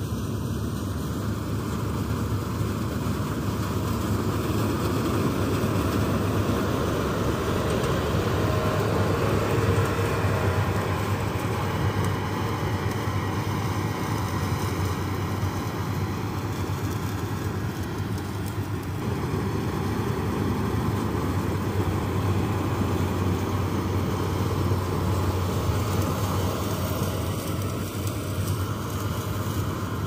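Malkit 997 combine harvester running steadily as it harvests a grain crop: a constant engine and machinery drone with a low hum underneath.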